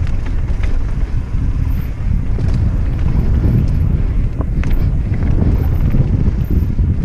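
Wind buffeting the microphone while a mountain bike is ridden down a trail. Under it is a steady low rumble of tyres on the ground, with scattered sharp knocks and rattles from the bike.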